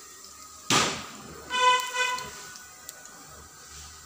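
A horn honks in two short toots of one steady, buzzy pitch, about one and a half to two seconds in. Just before it comes a short, loud hissing burst. Underneath is the faint sizzle of vadas frying in oil.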